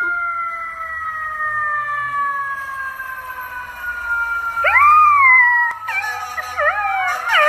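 Dog howling: one long, slowly falling howl, then a howl that rises and falls, then several wavering howls overlapping near the end.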